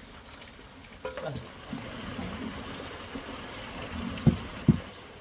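A large pot of curd boiling over a wood fire and being stirred with a ladle: a steady bubbling, liquid hiss, with two sharp knocks a fraction of a second apart near the end.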